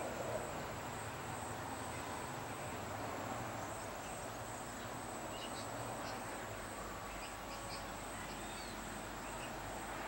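Outdoor ambience with a steady high-pitched insect drone throughout, and faint short bird chirps now and then in the second half.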